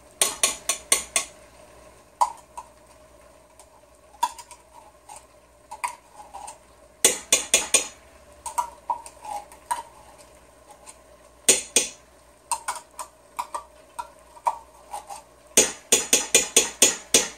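Metal spoon tapping and scraping against a small tomato paste can and the pot, in several quick runs of sharp taps with single taps between, as the paste is knocked out of the can into the pot.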